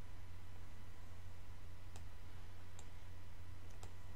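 Computer mouse clicking, about four separate clicks in the second half, the last two close together, over a steady low hum.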